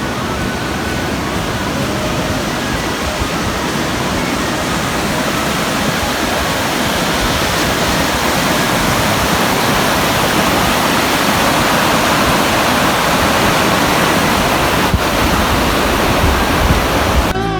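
Swollen river rapids rushing after heavy winter rain: a loud, steady wash of white water.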